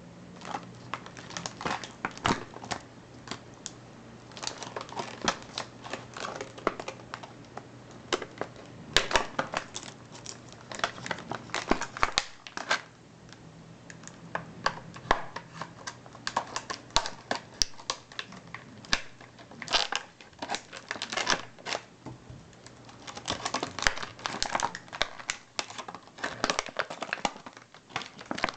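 Safety scissors snipping and cutting open toy packaging, with the packaging crinkling and crackling as it is handled: many irregular sharp snips and clicks.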